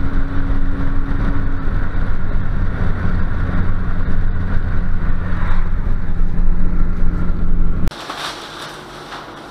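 A road vehicle's engine runs steadily at cruising speed under heavy wind and road noise. Its hum steps down to a lower pitch about two seconds in. About eight seconds in it cuts off abruptly to a much quieter indoor room sound with faint clatter.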